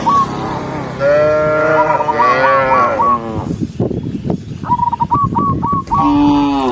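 Cows mooing: a long moo about a second in and another starting near the end. In between, a bird repeats a short call of quick hooked notes several times.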